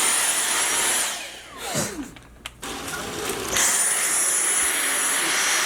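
Dyson cordless stick vacuum switched on by its trigger. The motor spins up to a steady high whine with a rush of air, runs about a second and winds down, then starts again about three and a half seconds in and runs on.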